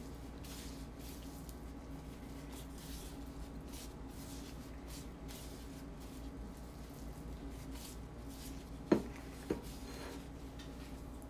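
Faint kitchen handling sounds, soft rubbing and mixing, over a steady low hum. Two short clinks come about nine seconds in, the first one louder.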